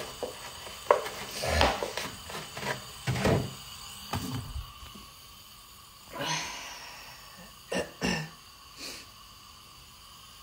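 Handling noise: a string of clicks, knocks and plastic rustling as a plastic-wrapped item and the phone are handled. A noisy burst comes about six seconds in, and two short sharp sounds follow about two seconds later.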